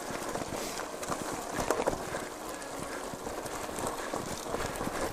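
Gravel bike rolling over a rough, stony, wet forest track: tyres crunching on loose stones and the bike rattling with many irregular knocks, a few louder jolts in the middle.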